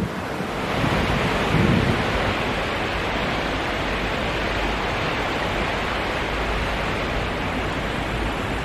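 The Enz river in spate, its water rushing steadily over rapids. It runs high, which the walker puts down to recent rain and snowmelt.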